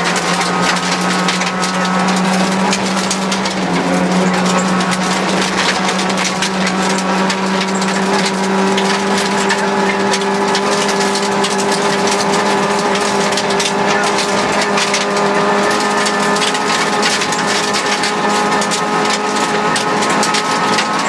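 Rally car engine at high revs, heard from inside the cockpit, with gravel and small stones crackling and pinging against the underside as it drives a loose gravel stage.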